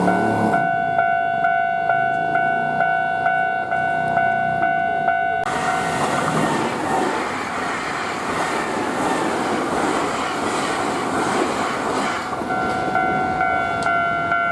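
Japanese level-crossing alarm ringing its steady, rapidly repeating electronic bell. About five and a half seconds in, a Nankai Limited Express 'Southern' train (7100 and 10000 series) passes, and its loud rush of wheels on rail drowns the bell for about six seconds. The bell is heard clearly again near the end.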